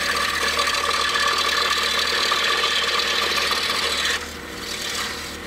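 Scroll saw with a number 3 reverse-tooth blade cutting through a small wooden track piece: a steady sawing rasp over the motor's low hum. About four seconds in the cutting sound drops and the saw runs on more quietly.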